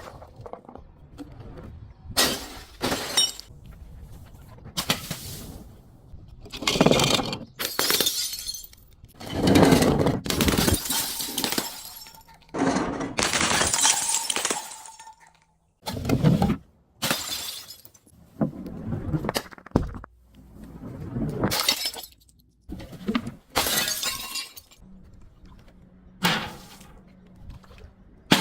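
Glass bottles breaking and crunching: a long series of separate sudden crashes, some sharp and brief, some drawn-out grinding crunches lasting a second or two.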